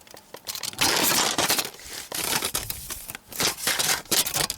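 Rustling and scraping handling noise with many scattered sharp clicks, loudest about a second in.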